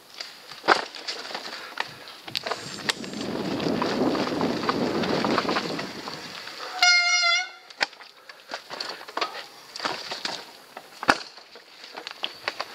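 Mountain bike clattering and knocking as it rides over a rocky trail, with a stretch of rushing noise in the first half. About seven seconds in, a loud, brief, horn-like squeal with a wavering pitch, typical of a bicycle disc brake squealing under braking.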